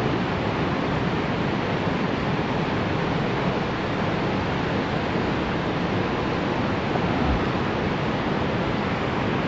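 Rushing stream water: a steady, unbroken rush of flowing creek water over rocks.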